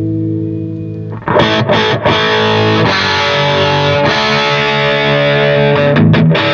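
Electric guitar played through an Orange Rockerverb 50 MkII valve amp head on its dirty channel. A held chord rings out, then heavily distorted chords are struck about a second in and left to sustain, with quicker struck chords near the end.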